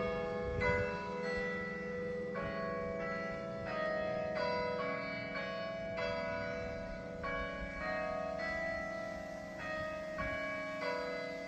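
Church bells being rung in changes: a steady, even run of overlapping bell strokes, about two or three a second, each ringing on into the next.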